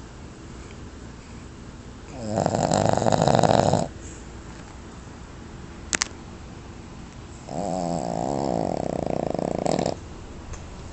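A sleeping pet snoring loudly: two long snores of about two seconds each, roughly five seconds apart, with a single sharp click between them.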